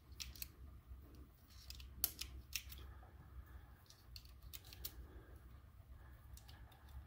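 .22 LR shotshells being pressed one at a time into a Taurus TX22 pistol magazine: a scattering of small, faint clicks and scrapes as each cartridge is pushed down against the follower spring and slides under the feed lips.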